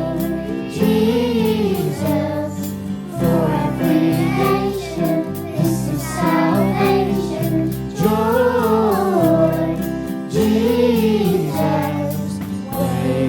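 Christmas worship song: several voices singing a melody in phrases over steady backing music.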